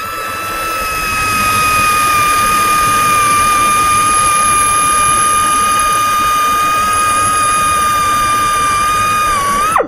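Drill running at a steady high whine as its bit bores a hole through a centrifugal pump's worn wear ring, the cut that frees the ring from its bore. The whine dips and winds down just before the end.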